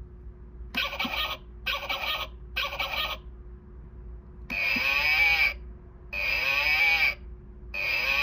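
Ticky Tacky animal-sound wall clock playing a recorded animal call: three short calls in quick succession, then three longer calls of about a second each.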